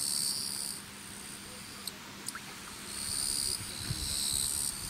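Insects calling in a high, buzzy trill that comes in phrases about a second long with short gaps between them. A faint steady low hum runs beneath.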